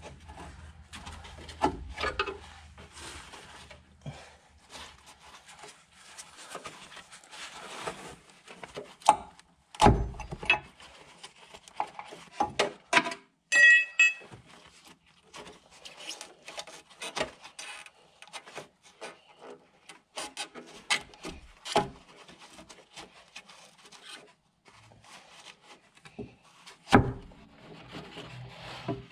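Hand tools working on the bolts of a van's anti-roll bar bush clamp in an awkward spot: scattered metallic clicks, knocks and scrapes of a spanner on the bolts and the bar, with a short metallic ring about 14 seconds in.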